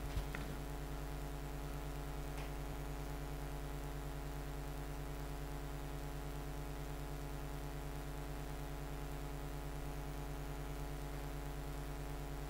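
Steady electrical mains hum with a stack of even overtones, unchanging throughout. Two faint ticks in the first few seconds.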